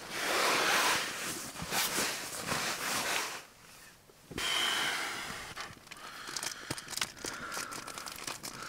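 Nylon tent fabric and gear rustling and crinkling as someone shifts about inside a small tent, with a short lull a little under halfway through.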